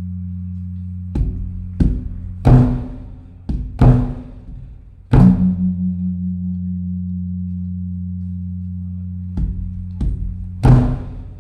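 Large Thai temple drum (klong) beaten by hand for the evening holy-day signal: about nine heavy strikes in an uneven pattern, a pause of about four seconds in the middle, and a deep hum ringing on between the strikes.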